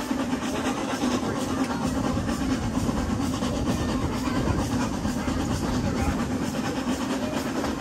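Steady rumble of a heritage steam-hauled train's carriage running on the track, heard from inside the moving carriage.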